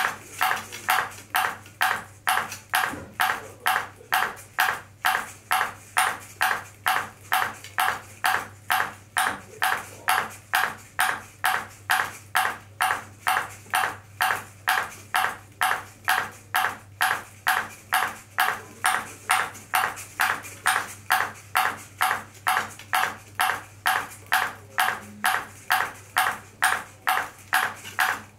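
A ping pong ball bouncing again and again off the clear dish of a ball-juggling robot: a sharp ping about twice a second in a steady, even rhythm.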